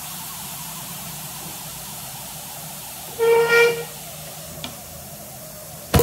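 Stovetop pressure cooker whistling once about three seconds in: a loud pitched toot of about half a second as its weight valve releases steam, one of the whistles counted while it cooks on high heat. A steady hiss runs under it, and a sharp click comes near the end.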